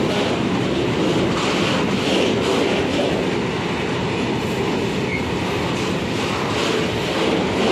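Freight train of Shimmns sliding-hood coil wagons rolling past at steady speed: continuous wheel-on-rail rumble that surges in a regular rhythm, about every two-thirds of a second, as the wheelsets go by.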